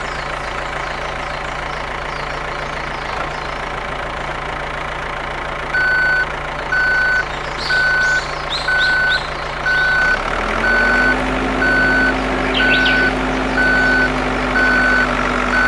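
A truck engine running steadily. About six seconds in, a reversing alarm starts beeping at a steady rate of a little over one beep a second. Near ten seconds the engine note steps up and holds higher, as if under more throttle.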